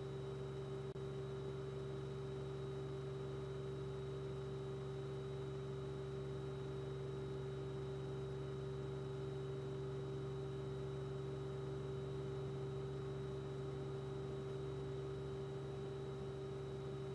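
Steady electrical hum made of a few fixed tones, a low one, a stronger mid one and a faint high whine, with no change in pitch or level.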